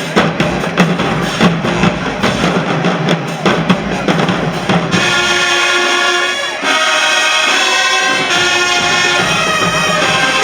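High school marching band playing: the drumline beats out a fast cadence, then about halfway through the brass section comes in with loud held chords.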